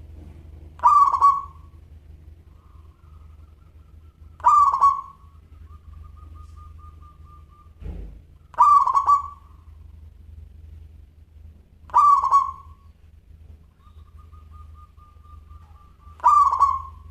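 Zebra dove (perkutut) cooing: five loud, clear coos about every four seconds, with softer rapid trilled notes between them. A dull low thump comes about eight seconds in.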